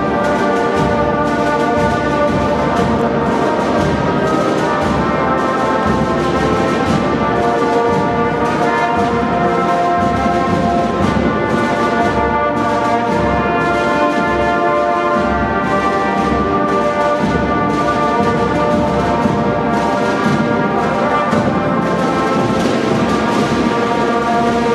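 Marching band playing a tune on brass instruments with held notes over a steady drum beat.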